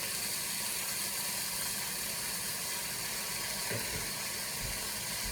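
Bacon sizzling in a cast iron pan, a steady hiss.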